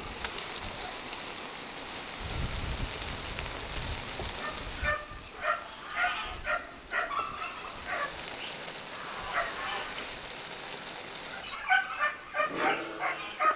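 Quail eggs and meat sizzling in a wide skillet on a grill, a steady hiss. From about five seconds in, short high animal calls sound over it, coming thicker near the end.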